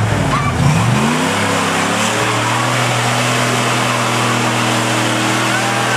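Early Ford Bronco's engine revving up about a second in and then held steady at high revs under load as it climbs a wet rock chute, with water churning and splashing under the spinning tyres.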